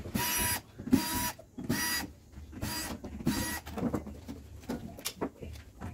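Cordless electric screwdriver whirring in about five short bursts, driving out screws to take off the refrigerator's condenser cover, followed by a few quieter clicks and rattles.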